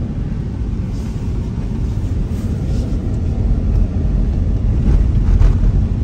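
Steady low road rumble inside a moving car's cabin, from the tyres and engine as the car drives over an unpaved dirt road.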